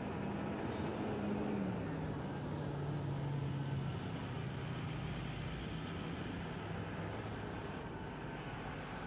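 Fire trucks' diesel engines running as the trucks drive slowly past, a low engine hum whose pitch drops once about two seconds in and then holds steady. A short hiss of air comes about a second in.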